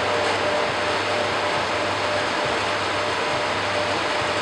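HO-scale model trains running on the layout: a steady whirring hiss with a low hum under it.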